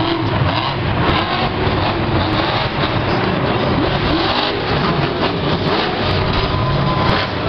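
Grave Digger monster truck's supercharged V8 revving hard and loud as the truck charges across the dirt and launches off a mound, the engine pitch rising and falling with the throttle.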